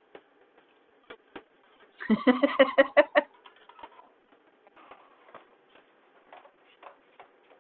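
A woman's brief, chopped laugh about two seconds in, heard through the compressed audio of a video call, with faint scattered clicks and ticks around it.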